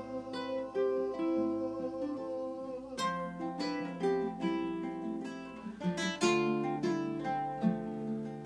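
Acoustic guitar playing an instrumental passage without singing: picked notes ringing over sustained chords, with a few strummed chord strokes.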